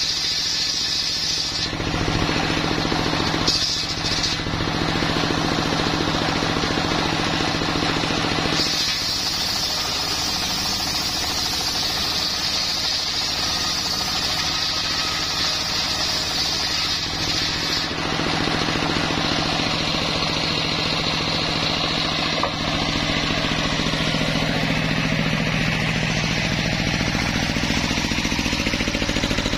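Engine-driven homemade circular sawmill running, its blade ripping coconut-wood planks: a high, rasping cutting sound over the steady engine note, in several passes, the longest lasting about nine seconds in the middle. Between passes only the engine and the freely spinning blade are heard.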